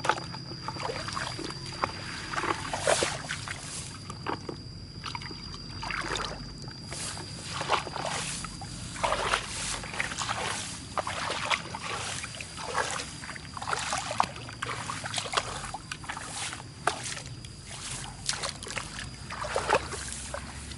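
Hands splashing and sloshing in shallow muddy water, in irregular splashes one after another, as someone gropes for catfish by hand. A thin steady high tone runs through the first half.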